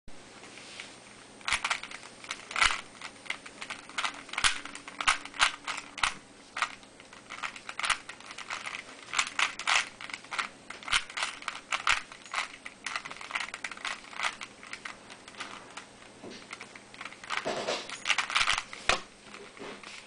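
Type A II 3x3 puzzle cube being turned by hand, its plastic layers clicking and clacking in quick irregular runs of turns with short pauses between them.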